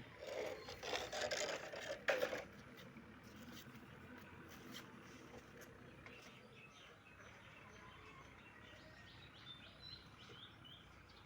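Rustling, handling-type noise for the first two seconds or so, then faint outdoor background with small birds chirping, a quick run of chirps near the end.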